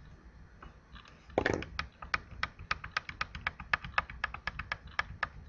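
Computer keys clicking rapidly and fairly evenly, about five clicks a second, starting about a second and a half in just after a brief louder bump.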